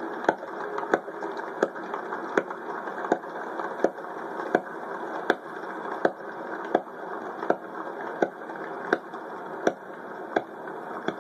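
Sharp single clicks or claps repeating evenly, about one every three-quarters of a second, over a steady hiss of background noise.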